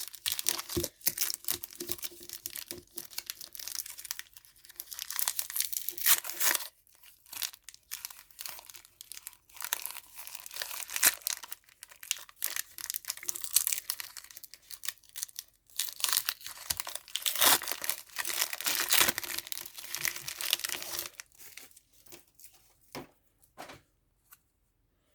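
Trading card booster pack wrappers being torn open and crinkled while the cards are handled. The crinkling comes in two long spells and thins to a few small clicks near the end.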